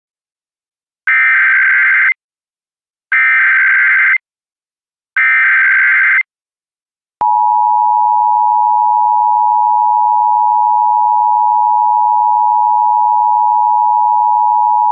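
Emergency Alert System signal opening an AMBER child-abduction alert: three one-second bursts of buzzing data tones (the SAME header), about a second apart, then a click and the steady two-tone attention signal, held for about eight seconds.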